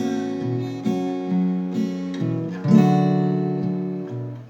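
Instrumental break of a gospel song: acoustic guitar strumming chords, changing chord several times, with no voice.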